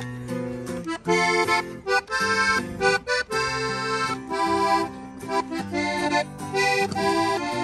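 Button accordion and acoustic guitar playing a tune together, the accordion carrying the melody in quick, separate chordy notes over a bass line.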